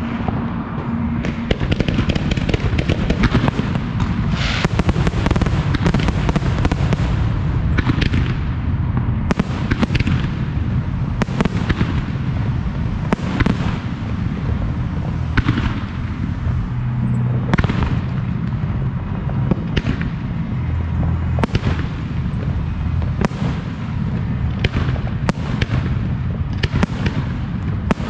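Professional aerial fireworks display in full swing: shells bursting in quick, irregular succession, several a second at times, over a continuous crackle.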